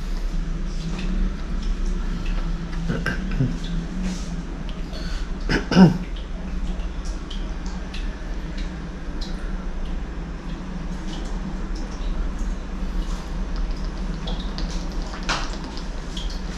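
A person drinking water in gulps, with small wet swallowing and mouth sounds and a louder throat sound, like a cough, about six seconds in, over a steady low hum.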